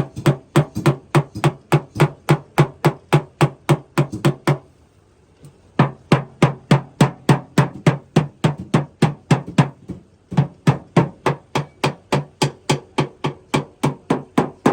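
Hammer blows beating out dented car body metal, struck in quick even runs of about four a second, with two short breaks.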